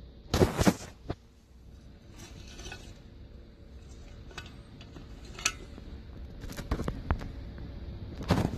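Engine running with a low steady rumble, overlaid by irregular sharp metallic clicks and knocks, loudest about half a second in and again near the end: the engine knock the owner is recording.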